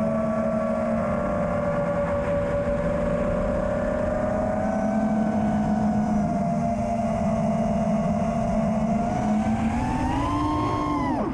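FPV quadcopter's brushless motors whining steadily over a low rush of noise. Near the end the pitch climbs as the throttle comes up, then drops sharply.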